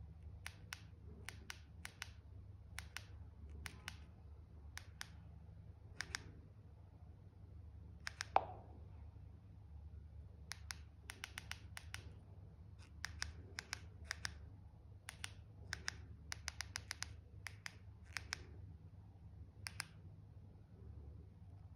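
Keypad buttons on a TXQ V8 walkie-talkie clicking under a thumb: irregular single presses and quick runs of presses, with one louder knock about eight seconds in. A steady low hum runs underneath.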